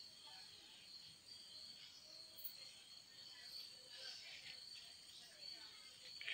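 Near silence: a faint, steady, high-pitched insect chirring, with faint distant voices.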